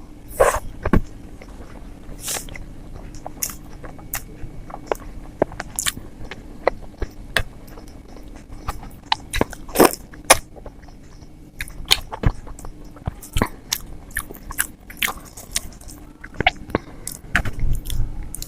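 Close-miked eating sounds of idli soaked in sambar and chutney: soft wet chewing and lip smacks with irregular sharp clicks, over a steady low hum.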